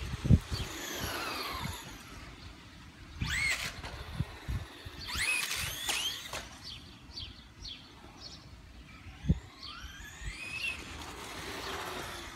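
Traxxas Rustler VXL RC truck's brushless electric motor whining up and down in pitch as it accelerates and slows, with a cluster of quick rising whines in the middle as it pops a wheelie. A sharp thump about nine seconds in.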